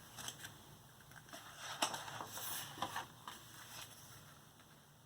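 Faint rustles and a few soft clicks from a paper picture book being handled, as when its pages are turned.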